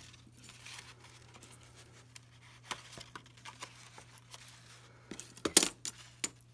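Sheet of paper being folded and handled, with light rustles and small clicks as the folded corners are pinched and held with metal paper clips; a louder rustle comes about five and a half seconds in.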